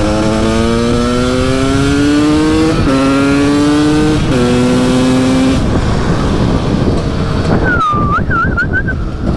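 KTM EXC 300 two-stroke engine with an FMF Shorty silencer accelerating hard. Its pitch climbs steadily and drops twice, about three and four seconds in, as it shifts up a gear each time, then the engine note falls away about five and a half seconds in. A brief wavering high tone follows near the end.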